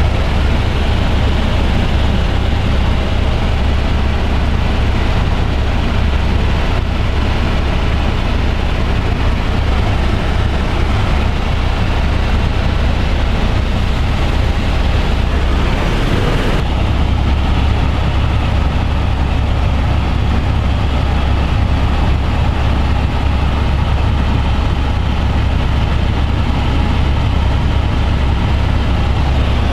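Helicopter in flight, its rotor and engine making a loud, steady drone with a strong low hum.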